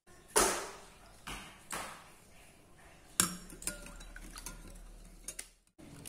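A metal spoon clinking against a glass bowl while stirring soy milk with agar-agar powder: a few sharp clinks with short ringing, the loudest about half a second in, then a few faint ticks.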